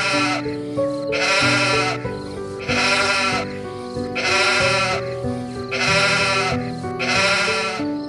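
An animal bleating over and over at an even pace, a quavering call about every second and a half, six in all, over background music with a simple melody.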